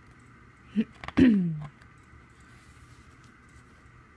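A woman's short wordless vocal sound about a second in: a brief note, then a longer one falling in pitch, with a click at its start. A photo book's page is turned with a light paper rustle over a faint steady hum.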